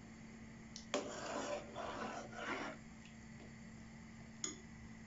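A metal spoon stirring in an aluminium pot of water: a sharp clink about a second in, a couple of seconds of scraping and swishing, and another sharp clink near the end. A faint steady hum runs underneath.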